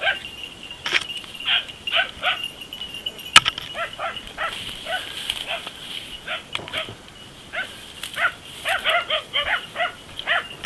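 Dachshunds giving tongue on a wild boar: short high yelping barks in irregular bursts, coming thickest near the end. A sharp snap about three and a half seconds in.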